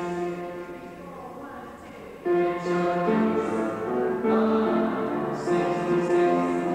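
A small mixed-voice choir sings in harmony, holding chords. The singing grows softer about a second in, and the full choir comes back in strongly just after two seconds.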